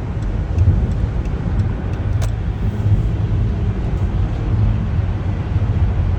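Steady low rumble of a car driving at highway speed, heard from inside the cabin: engine and tyre noise on the road. A single light click about two seconds in.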